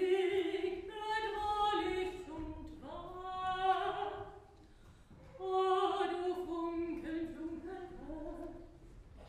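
A woman singing in long held notes with vibrato, pausing briefly about five seconds in.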